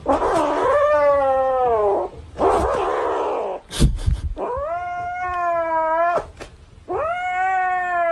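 Grey kitten giving about four long drawn-out yowls while clutching a plush toy that a hand keeps reaching for. The first yowl falls in pitch, the second is rougher, and the last two hold steady. There is a short sharp click between the second and third.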